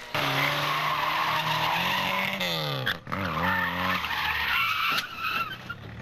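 Rally car engine running hard with loud tyre skid noise, its revs falling away a little before halfway. Then an engine revs up and down in quick swings, over tyre noise.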